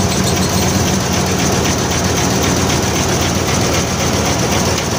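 Isuzu 10PD1 V10 diesel engine of a dump truck running steadily with the PTO engaged, driving the hydraulic hoist to raise the dump body.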